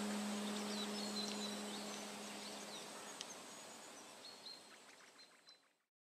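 Faint high bird chirps and twitters over a steady hiss, with a held low music tone that ends about three seconds in; the whole soundtrack then fades out to silence near the end.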